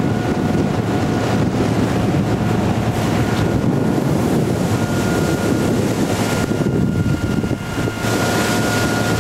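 Wind buffeting the microphone on a boat under way, over the steady hum of its prototype Honda BF90 four-stroke outboard motor and the wash of water.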